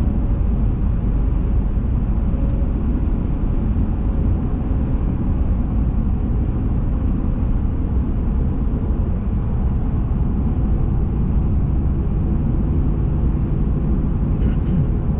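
Steady engine and road rumble of a moving vehicle, heard from inside the cabin.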